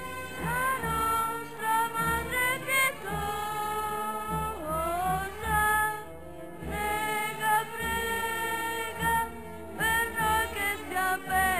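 Music with a singing voice, holding long notes that slide from one pitch to the next.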